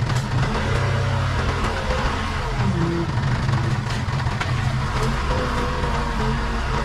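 Case 580 Super K backhoe loader's diesel engine running steadily under work, with a fainter whine that rises and falls several times.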